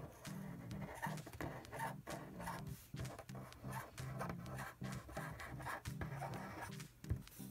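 Felt-tip marker rubbing and squeaking on paper in a series of short strokes as cursive letters are written, over faint background music.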